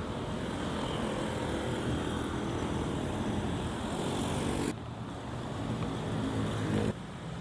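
Steady vehicle ride noise with a low hum, in three short clips that change abruptly about 4.7 s and 7 s in.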